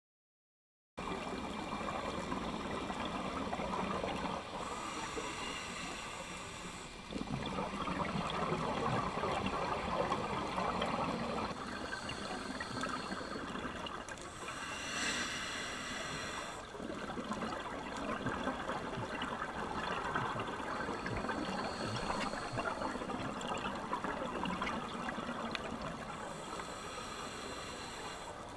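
Muffled underwater sound through a camera's waterproof housing: a steady watery rush that starts about a second in, with three louder hissing spells roughly ten seconds apart.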